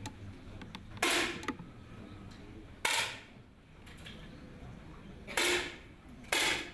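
10 m match air rifles fired along the firing line: four sharp pops, each with a short tail of room echo, one about a second in, one near three seconds, and two close together near the end.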